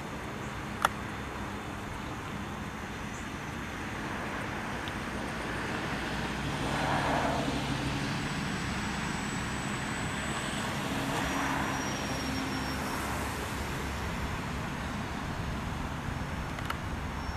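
Electric motor and propeller of a ParkZone F4U Corsair radio-controlled plane running up for its takeoff and climbing away: a steady whir that swells about six to eight seconds in, with a single sharp click about a second in.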